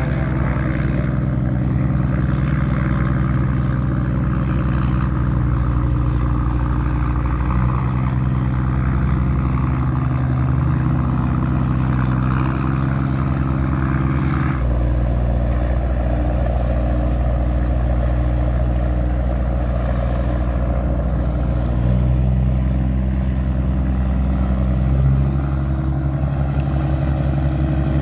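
Tugboat diesel engine running steadily with a deep, even drone; its tone shifts abruptly about halfway through.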